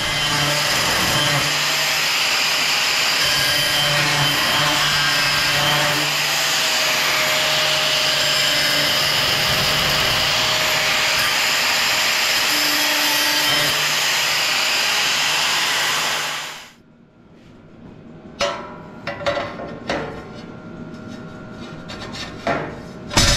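Electric angle grinder running against steel, a loud steady grinding that stops abruptly about two-thirds of the way through. Several sharp metal clanks follow as the steel pieces are handled.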